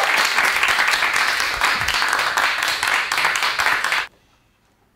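Applause from a small group of people clapping, cutting off suddenly about four seconds in, after which it is almost silent.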